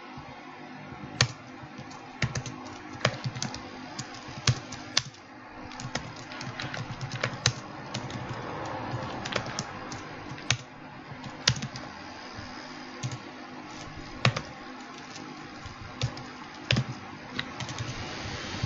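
Typing on a computer keyboard: irregular keystrokes, some in quick runs, a few louder than the rest, over a steady low hum.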